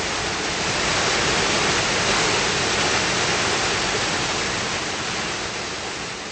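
Small waterfall splashing steadily over rocks into a garden pond. It swells up at the start and tapers off near the end.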